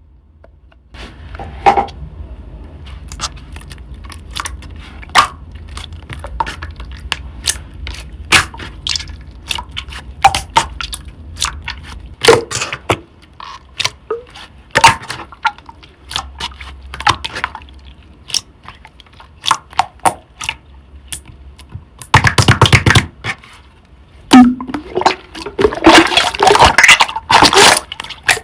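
Thick cream slime being squeezed and poked by hand: scattered sharp clicks and sticky pops, with two spells of dense crackling near the end.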